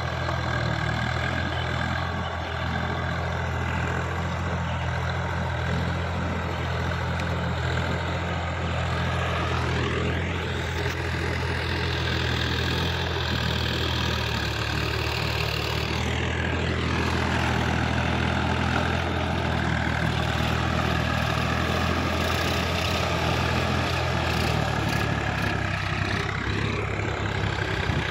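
Farm tractor's diesel engine running steadily under load while tilling a flooded paddy field. Its note shifts and sweeps up and down a few times.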